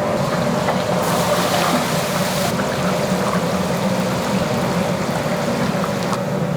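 Steady machinery hum of a commercial food-production kitchen, with a hiss starting about a second in and lasting about a second and a half.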